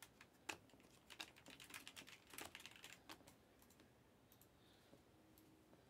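Faint, quick clicks and snaps of glossy Panini Prizm and Mosaic basketball cards being flipped through and slid against each other in the hands, stopping a little past halfway.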